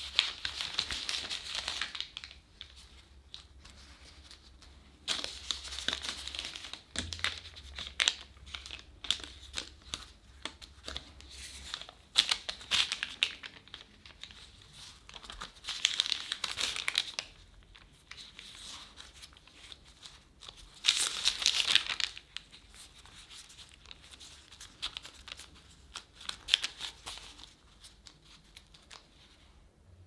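Thin plastic disposable gloves crinkling in about six short bursts as gloved hands fold and press pastry dough edges over sliced strawberries, with small sticky clicks of the dough among them.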